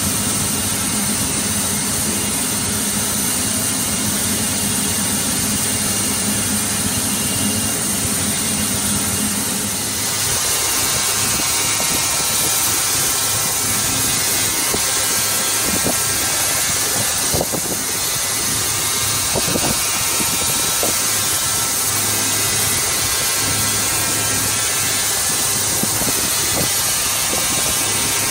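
Steady industrial machine noise from a large crankshaft turning in a belt-type journal polishing machine, with a continuous hiss. A lower hum drops away about ten seconds in, and a few faint clicks come later.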